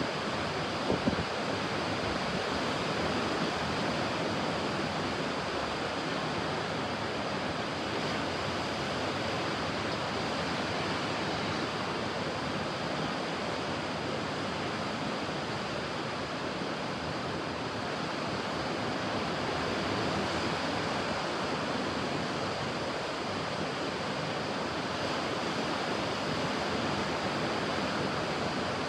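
Ocean surf: a steady wash of waves that swells gently now and then, with a couple of brief sharp knocks about a second in.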